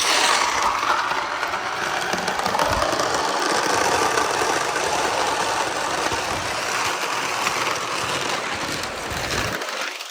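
Marbles rolling along a long handmade wooden gutter track, a steady rolling rattle that starts suddenly and thins out near the end.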